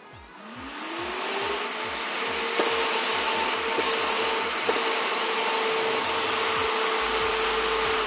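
Large high-airflow PC fan spinning up on 12 volts with a rising whine, then running at full speed with a steady whine and a loud rush of air. Near the end it begins to wind down, its pitch falling.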